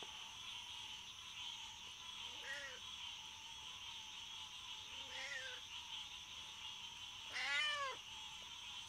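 Domestic cat meowing three times, the last call the longest and loudest, over the steady high hum of night insects.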